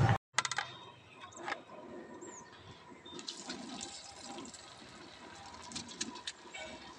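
Oil sizzling and crackling under a patty frying on a large flat griddle (tawa), with scattered small pops.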